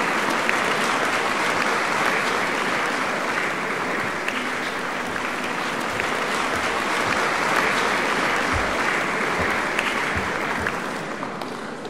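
Applause, many hands clapping steadily, dying away near the end.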